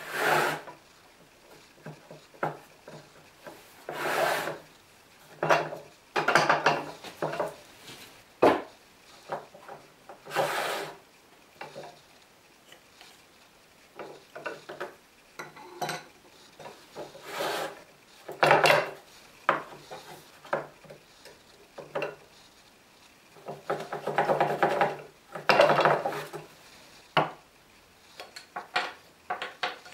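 Wood rubbing and knocking on wood as chisels are slid in and out of a wooden chisel rack and the rack is moved about on a wooden workbench: a dozen or so irregular scrapes, some up to a second long, with short sharp knocks in between.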